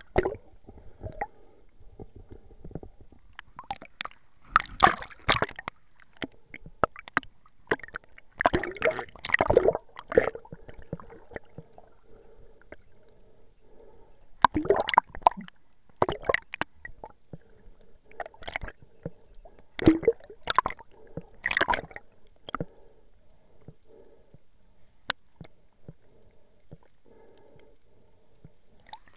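Water gurgling and sloshing around an underwater camera, with irregular bursts of bubbling every few seconds over a faint steady hum.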